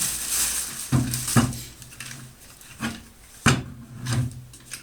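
Scattered knocks and clatters, about five, as the plastic-bodied power router is lifted out and handled. A faint low hum runs underneath.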